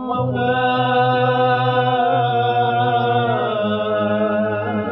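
A male voice chanting the Aleppine funeral tajwiqa, holding one long, ornamented note that wavers and bends near the end over a low steady note.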